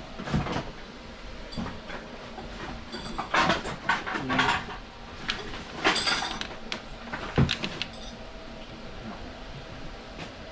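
Rummaging through trash and clutter: irregular clattering, knocking and rustling as things are moved about, busiest in the middle, with one sharp knock the loudest.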